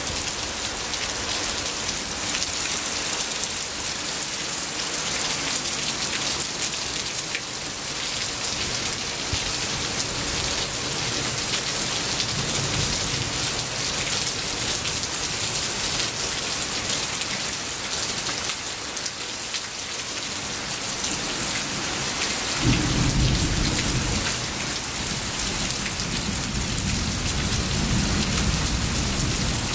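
Rain falling steadily in a thunderstorm, then a roll of thunder that breaks in suddenly about 23 seconds in and rumbles on, fading, almost to the end.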